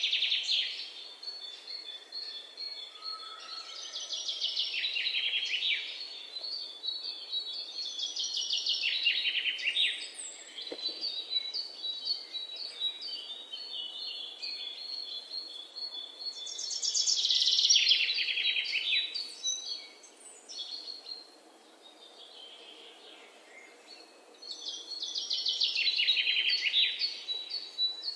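Songbirds singing: fast trilled phrases that fall in pitch, repeated several times, with quieter chirps and short whistled notes between.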